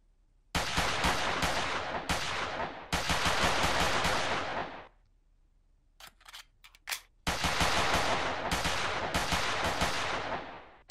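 Rapid automatic gunfire in two long stretches of several seconds each, with a few separate sharp cracks between them.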